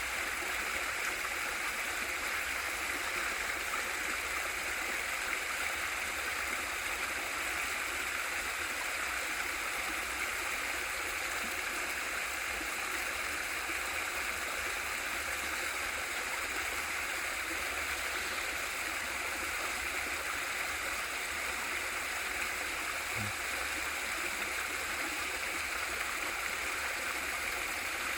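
Water pouring steadily over a small waterfall into a mountain valley stream: an even, unbroken rushing.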